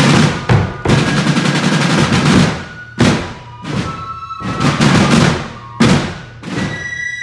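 A corps of rope-tensioned snare drums playing together in rolls and accented strokes, in phrases broken by short pauses.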